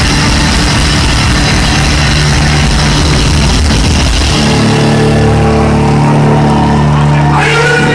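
Loud live rock music from an overloaded, distorted audience recording: a dense, noisy electric-guitar wash that, about four and a half seconds in, gives way to a held low droning chord.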